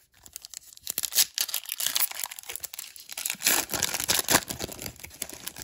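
Foil wrapper of a Topps Update baseball card pack crinkling and tearing as it is pulled open by hand. The crackle comes in uneven bursts, loudest about a second in and again in a stretch around the middle.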